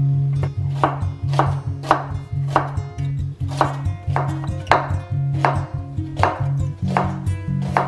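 Global chef's knife slicing vegetables on a bamboo cutting board, the blade knocking on the board in a steady rhythm of about two cuts a second.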